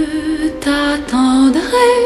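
A woman singing a slow, tender song, holding long notes that change pitch in steps.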